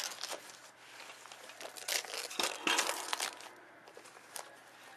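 Wrapping paper and gift packaging crinkling and rustling as a present is unwrapped and handled, in irregular bursts that are busiest in the middle and die down near the end.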